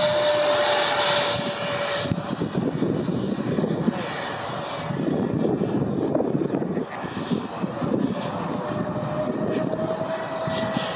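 Electric ducted fans of a Freewing MiG-29 RC jet in flight overhead: a steady high fan whine that fades for a few seconds in the middle, then returns and rises slightly in pitch near the end.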